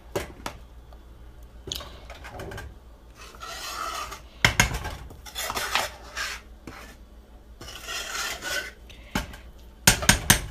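Metal spoon stirring thick split peas in a metal pot, scraping the bottom and sides in several strokes, with sharp clinks of the spoon against the pot, the loudest a cluster near the end.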